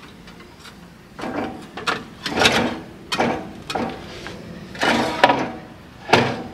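Hand work on metal machine parts: a series of about seven short clanks and scraping rattles with quiet gaps between them.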